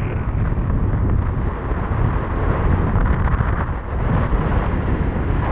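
Strong wind buffeting the microphone of a small boat running at speed across choppy water, a steady low rumble with the hull and spray mixed in.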